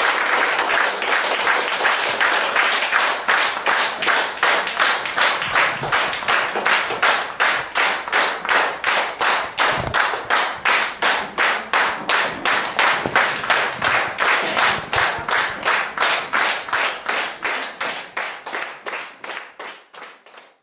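Audience applause in a small room that soon falls into unison rhythmic clapping, about two to three claps a second, fading out near the end.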